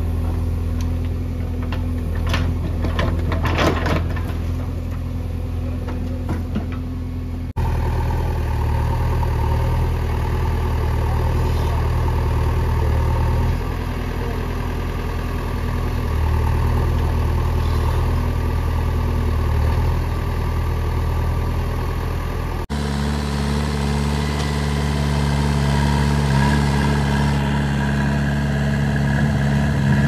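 JCB 3DX backhoe loader's diesel engine running steadily as it works. A few knocks and rattles come about two to four seconds in, as the bucket dumps a load of dung into a tractor trolley. The engine sound changes abruptly twice.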